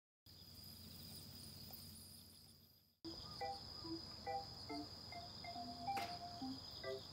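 Faint, steady high trilling of night insects such as crickets. From about three seconds in, a soft melody of short chime-like notes plays over it.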